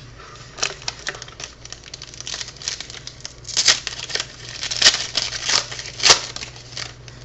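Hockey trading cards and their plastic being handled: an irregular run of crinkles, rustles and sharp clicks as cards are slid and flipped by hand, a few louder snaps in the second half.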